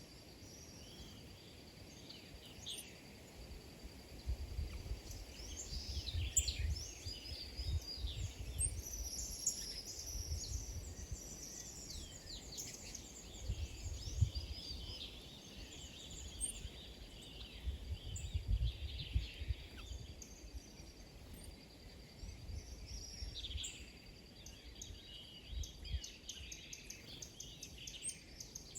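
Several small birds chirping and twittering over one another in quick, overlapping calls, with a low rumble coming and going underneath.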